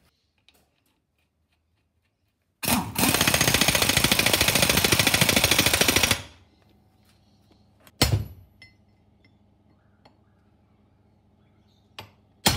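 Pneumatic impact wrench hammering for about three and a half seconds as it runs up the rear output flange nut on a Toyota Hilux transfer case. A single knock follows about two seconds later, and near the end comes a sharp hammer blow on a punch, staking the flange nut.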